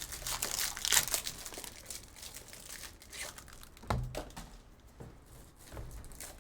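Foil trading-card pack wrappers crinkling and tearing as packs are ripped open and the cards handled, in irregular crackles that are loudest about a second in.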